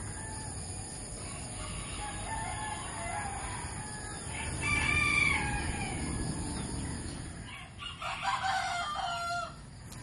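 Roosters crowing. The loudest crow comes about halfway through and another near the end, over steady background noise.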